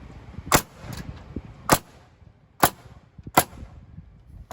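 Pneumatic nail gun firing four times, sharp cracks about a second apart, as nails are driven into the LVL beam.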